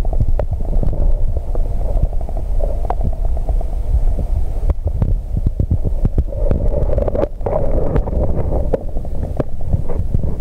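Muffled low rumble of water, with many small clicks and knocks, picked up by a submerged Samsung W300 waterproof camera's own microphone as it is moved about in the pond weed.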